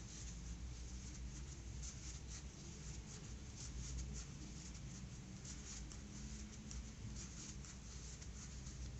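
Faint, repeated soft scratching and rustling of a 4 mm crochet hook pulling plush yarn through single crochet stitches, over a low steady hum.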